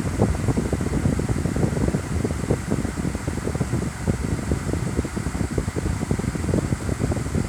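Celcia WAP-02EA20 portable air conditioner running, its fan blowing a steady, low rush of air.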